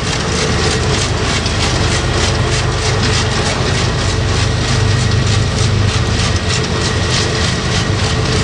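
Freight train rolling past, its wheels clicking over the rail joints about three to four times a second over a steady low rumble.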